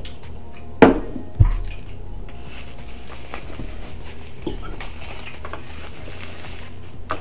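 Cutlery clinking against plates and bowls during a meal, with two sharp knocks on the table about a second in and smaller clicks later on.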